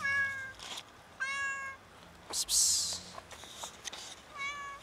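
A starving, very skinny stray cat meowing three times, short high-pitched meows as it begs for food. A short burst of hissing noise falls between the second and third meow.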